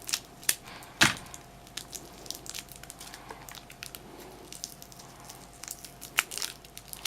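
Crinkling plastic wrapping and small sharp plastic clicks as a battery is unwrapped and handled with an infrared thermometer, with the loudest click about a second in.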